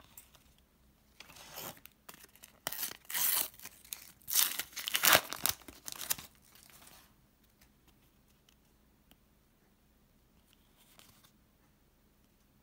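A Panini sticker packet's wrapper is torn open and crinkled by hand from about a second in until about seven seconds in, loudest in the middle. After that come only a few faint rustles as the stickers are handled.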